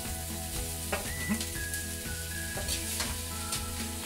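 Wok of vegetables sizzling as cooked rice is spooned in and stirred, with a few sharp clicks of the metal spoons against the wok and the glass bowl.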